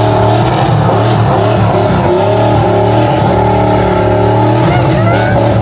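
A vehicle engine running loudly and steadily at a held pitch, with a thin high wavering whine above it.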